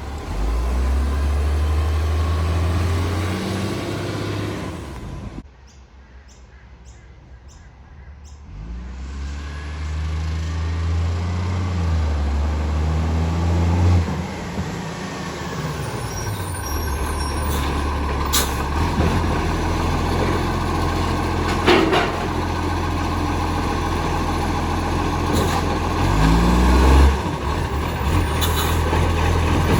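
Garbage truck engine running and changing speed, with an exhaust leak, dropping quieter for a few seconds near the start and then picking up again. A few brief sharp sounds come in the second half.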